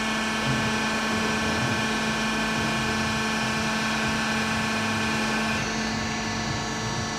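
Metallkraft BMBS 290x290 CNC-DG-F automatic metal-cutting band saw running with a steady hum; the higher hiss drops a little over five seconds in.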